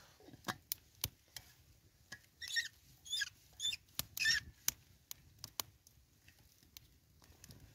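Vacuum flask lid being twisted open, giving four short squeaks between about two and four and a half seconds in, over the scattered crackle of a small wood fire.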